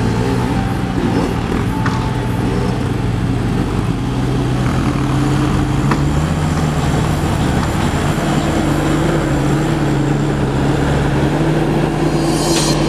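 Engine of an off-road Toyota 4x4 running under load as it drives over rough, rutted ground, its pitch rising a little about five seconds in.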